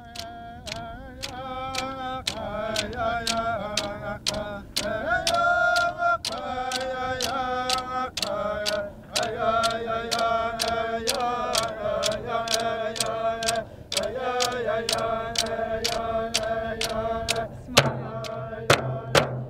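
Inuvialuit drum dance song: a group chanting in unison to large frame drums struck with sticks in a steady beat of about two strikes a second. Near the end the singing drops to a lower held pitch while the drumming goes on.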